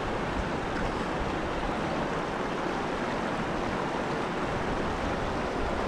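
The Chandra river flowing: a steady, even rush of moving water.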